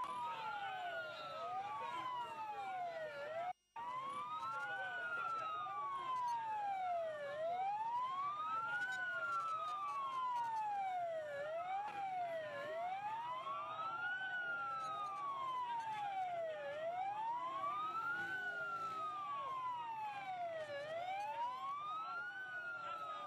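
Police vehicle sirens wailing, two of them out of step, each slowly rising and falling in pitch about every four seconds. The sound drops out completely for an instant about three and a half seconds in.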